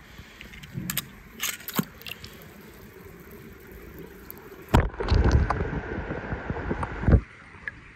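A small die-cast toy car dropping into a swimming pool: a few faint clicks, then a sudden splash and about two and a half seconds of churning, gurgling water that cuts off abruptly.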